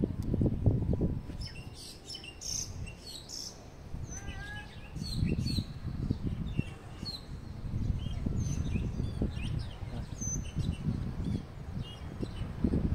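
Small birds chirping and tweeting: many short, quick notes scattered throughout, most of them sliding down in pitch, with the busiest run in the first half. Underneath is a low, uneven rumble that rises and falls and is the loudest thing heard.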